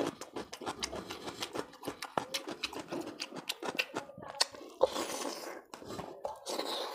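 A man eating rohu fish curry and rice by hand: wet, squishing handling of the fish and rice, then chewing with many small clicks and smacks from the mouth.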